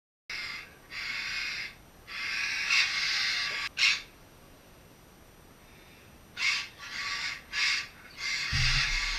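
African grey parrots squawking in harsh, stop-start bouts, with a pause of about two seconds midway. A low thud comes near the end.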